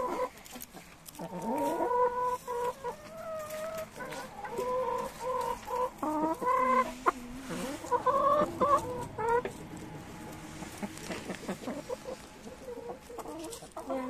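Several hens clucking and making drawn-out, wavering calls as they feed, with short taps in between.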